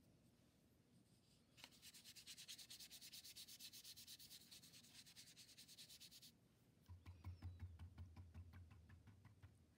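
Paintbrush scrubbing red paint onto paper in quick, even back-and-forth strokes, faint. After a short pause about two-thirds of the way in, a second run of strokes comes with a low thudding underneath.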